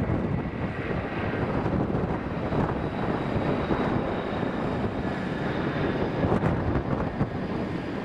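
Jet airliner engines running, a steady rush of noise, mixed with wind buffeting the microphone.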